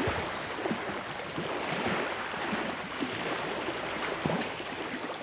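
Outdoor water ambience: water lapping and splashing, with many small irregular splashes over a steady wash.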